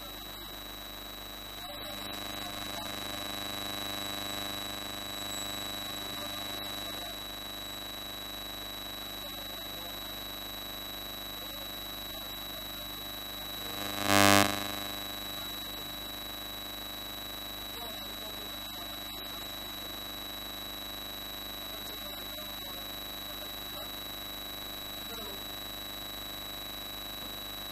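Steady electronic buzz made of several constant tones, topped by a high whine, with one short loud blip about 14 seconds in. The speech that should be there is missing under it, the sign of a fault in the audio signal.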